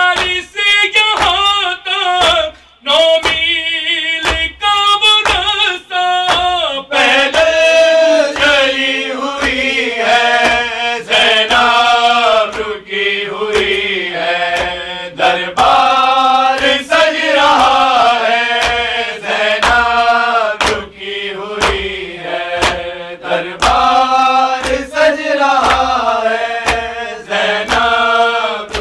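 A man chanting a lament into a microphone, joined by a group of voices from about seven seconds in, over steady thumps about twice a second.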